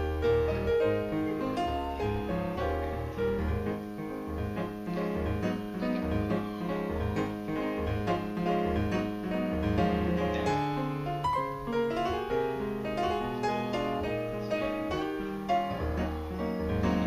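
Background instrumental music led by piano, with a repeating low bass note under the melody.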